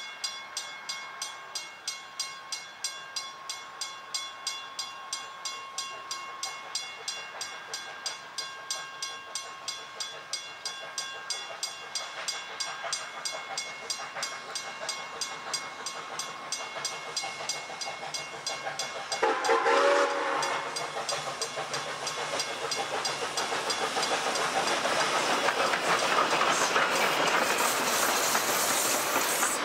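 South Australian Railways Rx-class steam locomotive approaching with a passenger train, its exhaust beating steadily at about two chuffs a second. About two-thirds of the way in comes a short steam whistle blast, then the sound grows louder and denser as the locomotive and wooden carriages pass close by.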